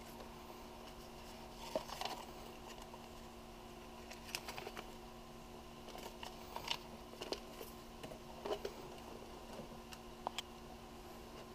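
Handling noise from a folded Polaroid 180 camera being set into its fitted carrying case and paper booklets being shuffled: scattered light clicks, taps and rustles, over a steady low hum.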